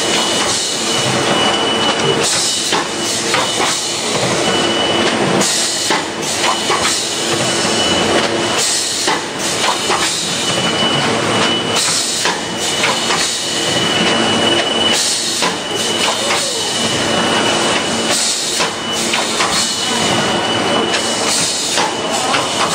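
Automatic juice cup filling and sealing machine (SP-1220A) running its cycle: steady mechanical clatter, with a burst of hissing about every three seconds as the sealing press cycles.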